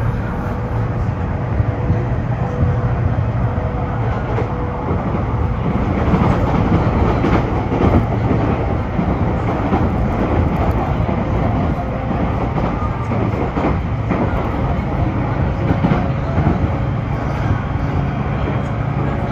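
Steady running noise inside a moving electric train: the rumble of wheels on rail, with a few sharp clacks as the wheels pass over rail joints or points.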